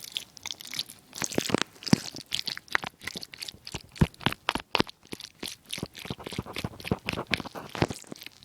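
A fork swishing through a Sloppy Joe: an irregular, quick run of wet clicks and scrapes of fork against food and plate.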